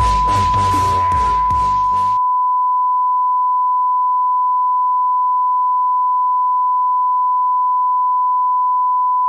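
A steady, unwavering test tone of the kind played with broadcast colour bars. Electronic music plays under it for about the first two seconds, then cuts off suddenly, leaving the tone alone.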